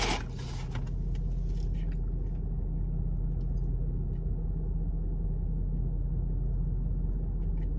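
Steady low hum of a parked car running, heard from inside the cabin. There is faint rustling in the first couple of seconds.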